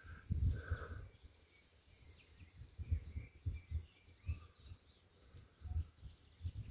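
Faint rural outdoor ambience: a few birds chirping now and then, over irregular low rumbles and thumps.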